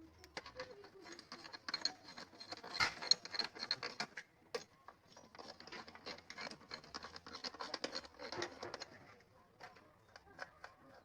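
Rapid, irregular light clicks and scrapes of hand tools working on an engine, busiest through the middle and thinning out near the end.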